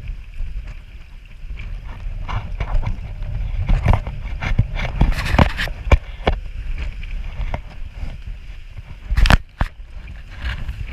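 Strong wind buffeting the microphone with a steady low rumble, broken by irregular sharp knocks and scuffs, the loudest a little after nine seconds.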